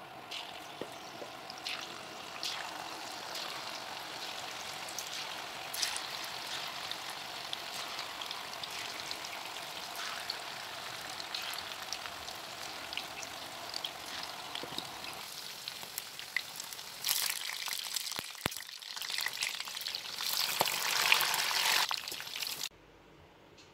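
Batter-coated cauliflower florets deep-frying in hot oil in a wok, a steady sizzle full of small crackles. The crackling grows louder in the last few seconds, then cuts off suddenly near the end.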